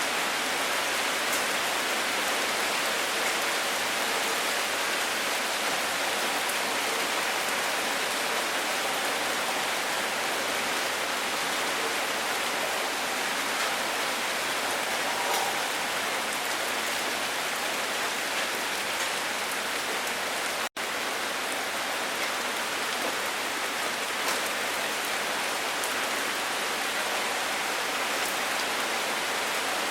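Steady rain falling, an even hiss, with a split-second dropout about two-thirds of the way through.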